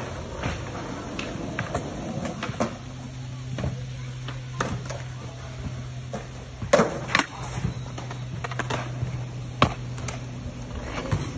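Stunt scooter rolling over concrete skatepark surfaces, with sharp irregular clacks of the deck and wheels knocking on the ground; the loudest pair of clacks comes about seven seconds in. A steady low hum runs underneath.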